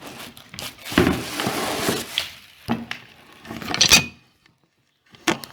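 Irregular knocks, clinks and scraping of small objects being handled, with a near-silent gap about three-quarters of the way through.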